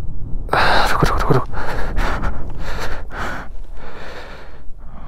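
Rapid, heavy breaths close to the microphone, about two a second, from someone short of breath in the thin air of a high mountain pass. Wind rumbles low on the microphone underneath.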